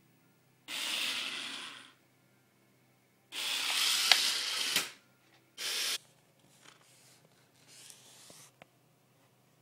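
PicooZ micro helicopter motor and plastic gear train driving a tiny model coach, whirring in short bursts as the throttle is blipped: two bursts of a second or more, a short one, and a fainter one near the end.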